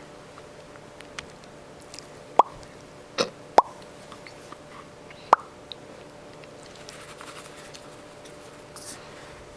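Four short, sharp pops, spread from about two to five and a half seconds in.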